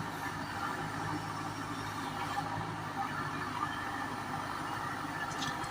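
A JCB 3DX backhoe loader's diesel engine running steadily at a low, even speed, with no clear revving or strikes.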